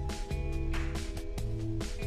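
Background music with a steady beat and a bass line that moves between notes.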